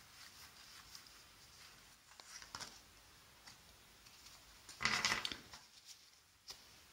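Playing cards being dealt onto a tabletop spread: soft paper rustles and slides as the cards are laid down, with a louder brush of cards about five seconds in.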